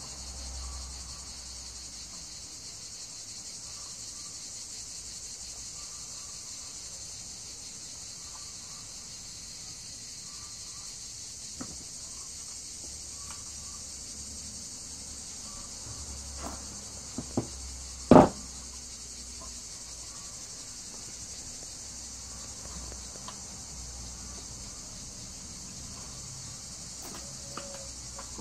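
Steady high insect buzzing throughout. A few sharp clicks and knocks from handling fishing tackle on the workbench, the loudest about two-thirds of the way through.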